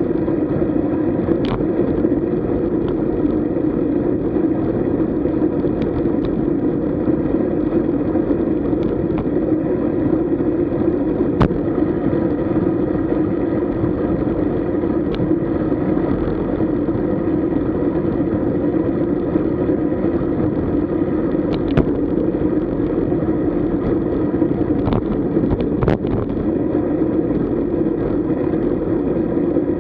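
Steady rumbling road and wind noise of a road bicycle being ridden, with a few scattered sharp clicks.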